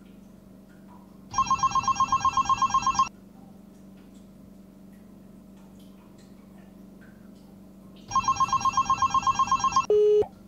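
Telephone ringing in the classic trilling bell pattern: two rings about five seconds apart, each a fast rattle lasting nearly two seconds, then a brief steady beep near the end as the call is picked up.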